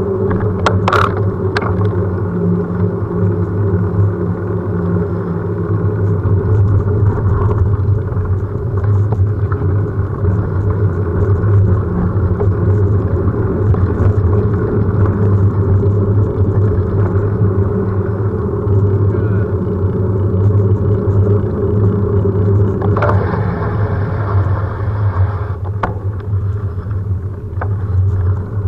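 Steady rumble of wind buffeting and tyre noise on asphalt, picked up by a camera mounted on a moving bicycle, with a few sharp clicks about a second in and a brief hiss near the end.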